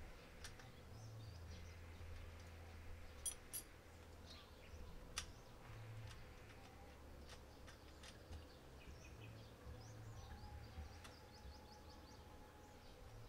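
Very quiet. A few light metal clicks from an Allen key and a bolt being worked into the star nut in a mountain-bike fork's steerer tube, with faint bird chirps in the background.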